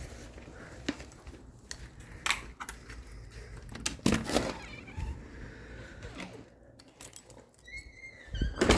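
Front door being opened: scattered clicks and knocks of the latch and handling, then a short high squeak near the end followed by a louder clatter.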